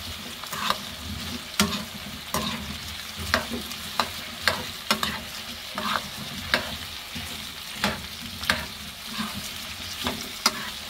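Parboiled potato chunks sizzling in oil in a frying pan while a spoon stirs them, the spoon knocking and scraping against the pan in irregular clicks a little more than once a second.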